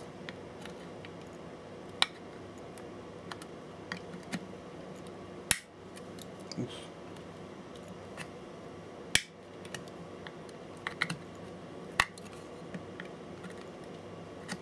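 A knife blade prying at a plastic logo cap on a control panel: four sharp clicks spaced about three to four seconds apart as the blade slips and snaps against the plastic, with fainter ticks between, over a steady low background hum.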